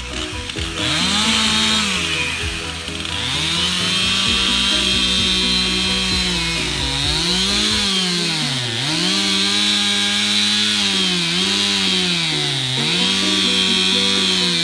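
Gas chainsaw revving up to full throttle about a second in and cutting through a maple trunk, its pitch sagging several times as the chain is loaded in the cut and then recovering.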